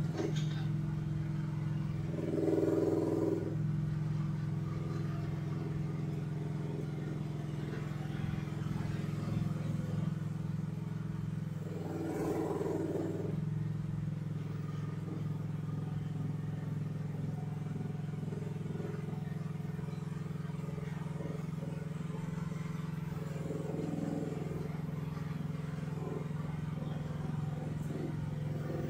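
Chinese mini excavator's small engine running steadily at low idle while the machine tracks slowly across concrete, swelling briefly about three times. It is throttled right down to its governed idle, possible now that an interference under the hood holding the throttle up has been cleared.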